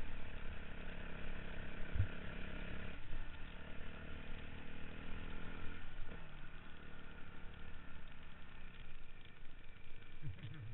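Off-road motorcycle engine running steadily, its pitch shifting slightly about three and six seconds in.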